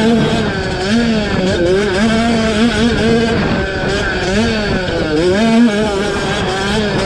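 Youth 50cc two-stroke motocross bike engines racing, the pitch rising and falling over and over as the throttle opens and closes.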